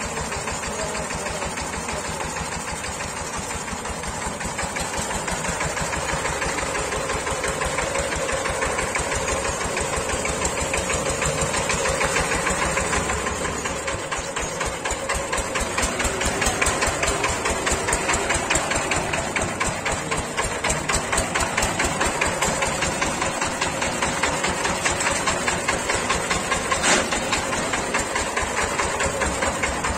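Single-cylinder diesel engine of a two-wheeled power tiller running as it hauls a trolley: a fast, even chugging knock that grows a little louder about halfway through, with one sharper knock near the end.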